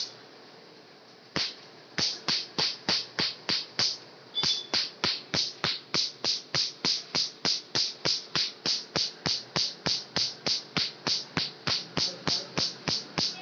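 Tattoo-removal laser firing pulses into the skin over a tattoo, a sharp snap with each pulse: one snap about a second and a half in, then a steady run of about four snaps a second as the ink is shattered.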